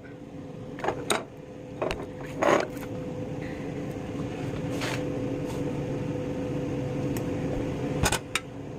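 A steady electrical hum from a kitchen appliance, with a few light clinks of a spoon against a bowl scattered through it.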